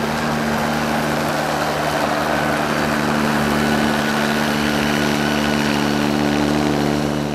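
An engine idling steadily, with an even low hum that holds one pitch, then fades out near the end.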